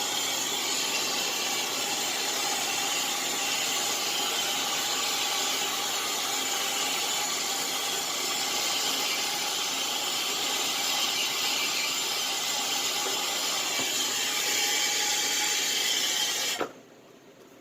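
Brazing torch flame hissing steadily while heating the copper refrigerant lines to unsweat them from the compressor, then shut off abruptly near the end.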